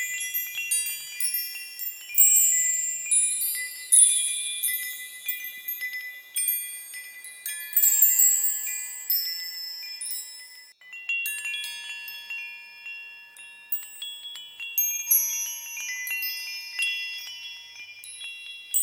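Small high-pitched metal chimes ringing at random like wind chimes, many overlapping tones struck irregularly with no beat. There is a brief lull about eleven seconds in.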